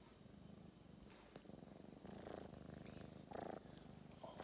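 Kitten purring steadily at close range, a fine fast rattle that swells louder twice in the second half.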